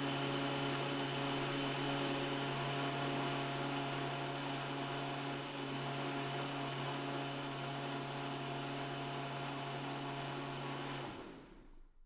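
Vitamix A3500 blender motor running steadily at high speed, blending ginger, lemon and coconut water into a smooth liquid, with a steady hum and a noisy whir over it. It is switched off about eleven seconds in and winds down quickly.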